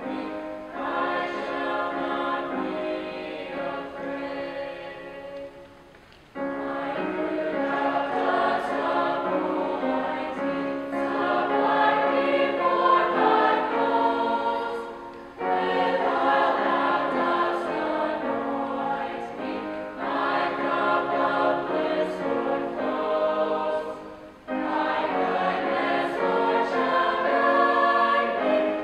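Mixed choir of young men and women singing with grand piano accompaniment, in long sustained phrases with three brief breaths between them.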